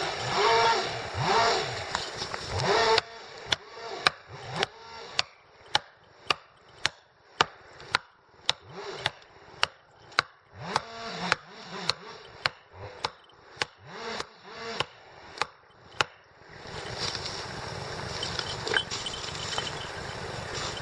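A chainsaw running and revving for the first few seconds, then a long run of sharp, evenly spaced knocks, about two a second, for some thirteen seconds, then steady engine noise again near the end.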